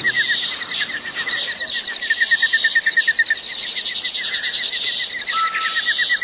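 Insects chirping in a fast, even trill of short repeated pulses, about a dozen a second, with a second, higher trill over it and a few brief steady tones near the end.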